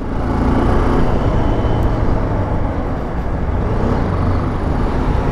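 BMW G310 GS motorcycle riding along a road: its single-cylinder engine running steadily under a loud rush of wind and road noise.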